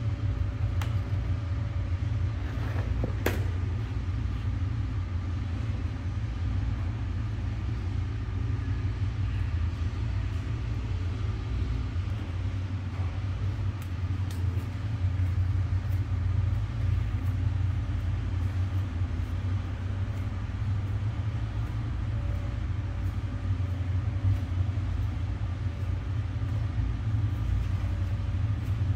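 A steady low rumble, with a single sharp click about three seconds in.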